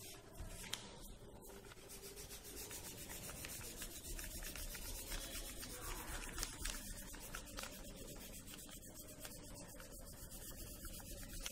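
Crayon rubbed back and forth over paper laid on a leaf: a faint, steady rubbing made of many quick strokes.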